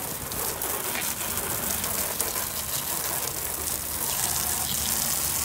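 Garden hose spray nozzle jetting water against a car's lower body sill and splashing onto wet pavement: a steady hiss of spray.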